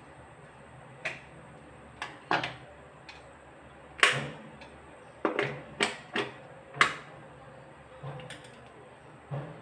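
Irregular sharp clicks and knocks, about a dozen, from hands handling things at a kitchen counter. The loudest comes about four seconds in, as an electric plug is handled at the wall socket.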